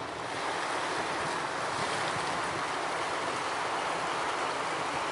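Fountain jets splashing into a shallow pool: a steady rush of falling water that swells slightly in the first second and then holds even.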